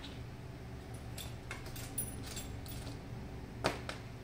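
Light metallic clicks and clinks of small hand tools and metal parts being handled on a workbench, a handful of them scattered through, the sharpest near the end, over a steady low hum.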